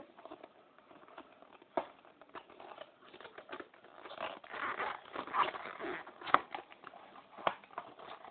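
A small cardboard toy box being opened by hand: scattered clicks and scrapes, then a busier stretch of crinkling and tearing in the middle, with a few sharp snaps.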